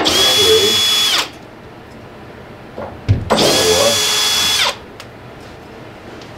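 Power drill/driver spinning in two short runs of a little over a second each, its whine rising as it starts and falling as it stops, backing out panel screws. A light knock comes just before the second run.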